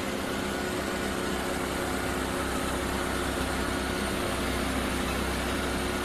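Norwood LumberPro HD36 portable band sawmill running steadily, its engine and spinning band blade, as the saw head is pushed by hand toward a rosewood log.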